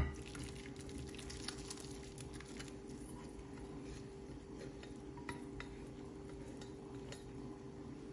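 Minced meat and tomato sauce scraped out of a nonstick pan into a glass baking dish with a silicone spatula: soft scrapes, light taps and wet plops, most of them in the first few seconds, over a steady low hum.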